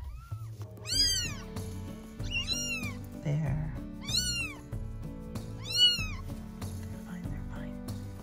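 Newborn kitten mewing: four high-pitched cries, each rising and falling, about a second and a half apart, with fainter cries at the start and end. Background music plays underneath.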